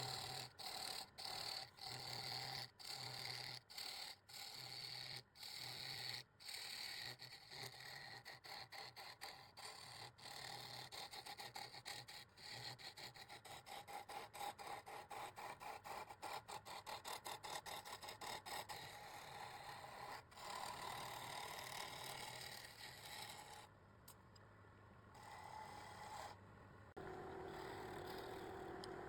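Rhythmic hand scraping and rubbing strokes on a hard surface, about two a second at first, quickening to a fast scrubbing, then easing into smoother continuous rubbing.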